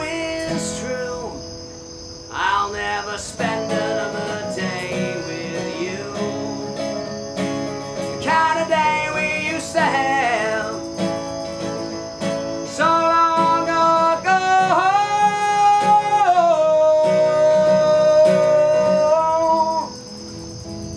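Live acoustic band playing acoustic guitars with a male lead vocal, the last sung lines stretched into long held notes before the music stops about a second before the end. Crickets chirp steadily underneath.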